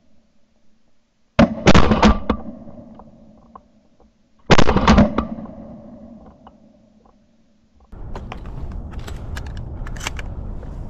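Shotgun fire: a quick run of shots about a second and a half in, then another shot about three seconds later, each echoing away over a couple of seconds. Near the end a steady background noise with scattered clicks takes over.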